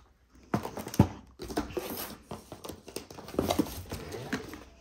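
Cardboard kit boxes and packaging being handled: a couple of sharp knocks about half a second and a second in, then irregular rustling with small taps.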